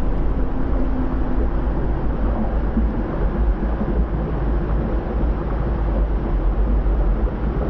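Volcanic eruption with flowing lava: a steady, loud, deep rumble overlaid with dense crackling.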